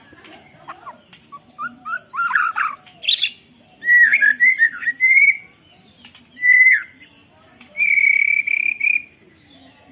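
White-rumped shama (murai batu) singing, its song filled in with canary-style phrases: a few short rising notes, a sharp loud note about three seconds in, warbling phrases, then a steady trill held for about a second near the end.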